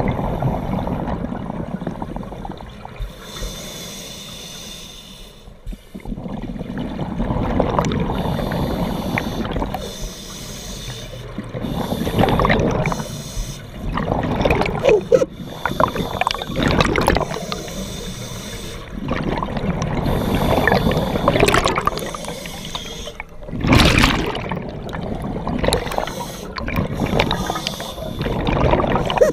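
Scuba diver breathing through a regulator underwater: exhaled bubbles bubbling and rumbling out every few seconds, between quieter inhalations.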